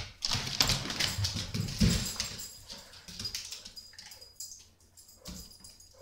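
Small shaggy dog scuffling about with a toy: a string of short clicks and rustles, loudest in the first two seconds and fading after.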